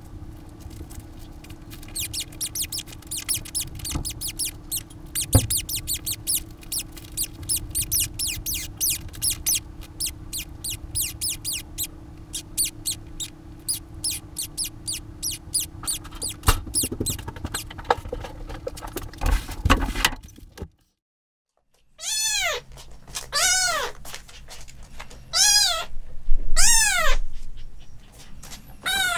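A two-week-old kitten scrabbling across a disposable pee pad, its claws and the pad making rapid crinkling and scratching over a steady low hum. After a brief silent break, the kitten mews loudly over and over, each call rising and then falling in pitch.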